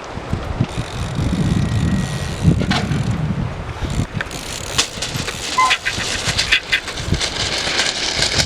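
Trials mountain bike riding on wet ground: a rolling rumble of tyres, then a series of sharp knocks and clatters from hops and landings.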